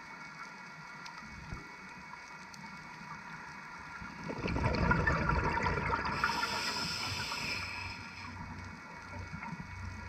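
Scuba diver's exhaled bubbles from the regulator gushing past an underwater camera housing: a loud burst starting about four seconds in and fading out near eight seconds, over a faint steady underwater hiss.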